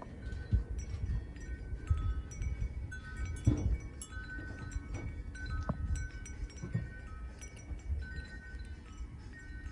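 Metal wind chimes ringing irregularly at a few fixed pitches, with gusts of wind rumbling on the microphone.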